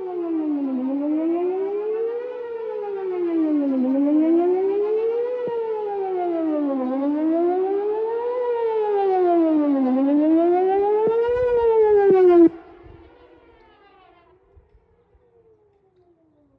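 Whelen WPS 4008 electronic outdoor warning siren sounding a wail test tone, its pitch rising and falling evenly about every three seconds. It cuts off abruptly about twelve seconds in, leaving only a fainter wail from farther off.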